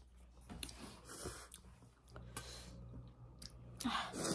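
Mouth sounds of eating instant noodles: intermittent chewing and slurping with small wet clicks, and a louder burst near the end.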